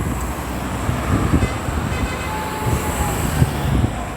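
Road vehicle noise: a steady low rumble with several dull thumps, and a faint brief tone about halfway through.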